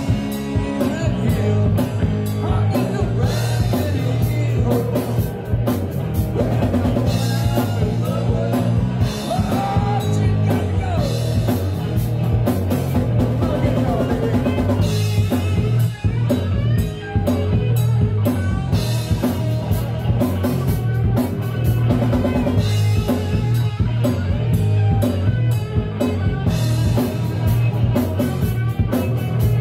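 Live rock band playing an uptempo song with electric guitars, keyboard, bass and a driving drum kit, and a harmonica played through the vocal microphone.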